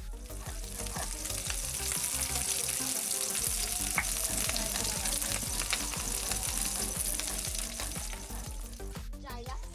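Prawns sizzling in hot oil in a metal wok, with a flat metal spatula scraping and clicking against the pan as they are stirred.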